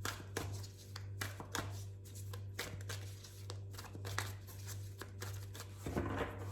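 Tarot cards being shuffled and handled: a run of quick, irregular soft snaps and slides of card stock, over a steady low electrical hum.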